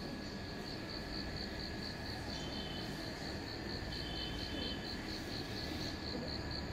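Crickets chirping in a fast, even pulsing rhythm, with a second, lower trill joining briefly twice, over a low steady rumble.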